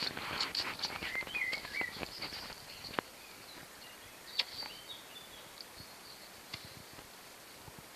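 Small birds chirping in a garden. In the first three seconds there is rustling and light clicking as a towel is rubbed over a Saint Bernard's muzzle, then it goes quieter, with scattered chirps.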